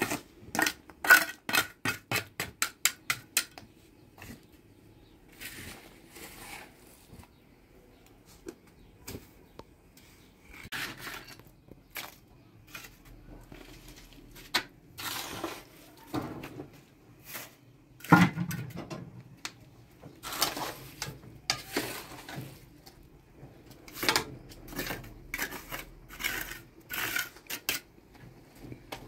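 Bricks and stones being set in wet mortar: a quick run of sharp taps at about four a second in the first few seconds, then scattered scrapes and knocks of masonry against mortar and brick.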